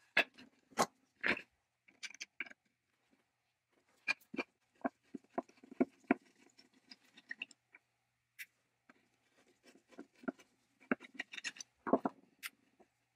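A rusty cast iron bracket and a wooden board from an antique beam drill handled on a wooden workbench: scattered clicks, knocks and scrapes of metal and wood. A cluster of louder knocks comes near the end as the bracket is worked loose from the board.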